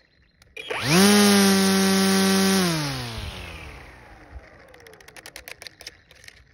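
Ego 56V cordless string trimmer spinning up with a quick rising whine, running steady for about a second and a half, then winding down with a falling whine as it coasts to a stop.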